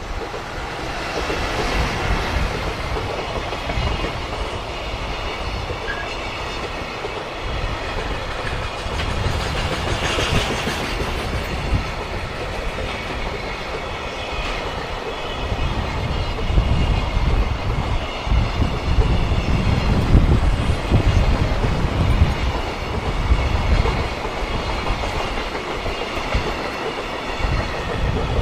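A JR Freight train rolls past slowly, its wheels clattering over the rail joints. It is running at restricted speed because of very strong wind, and gusts buffet the microphone with a rough low rumble that is heavier in the second half.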